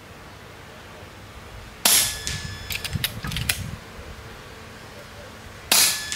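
RTI Prophet II 5.5 mm PCP air rifle fired twice, about four seconds apart, with a few clicks between the shots. Each shot is followed by a thin steady whistle, the noise of a check valve breathing through as the plenum refills from the regulated section.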